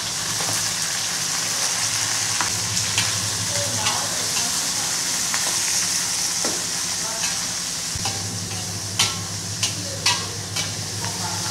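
Greens, fried tofu and fishballs sizzling in a wok as a metal spatula stirs them, scraping and clinking against the pan. A few sharper clinks of the spatula on the wok come near the end.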